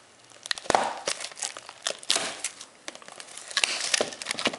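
Plastic wrapping on a box of trading cards crinkling as it is handled and opened by hand, in scattered crackles that grow denser near the end.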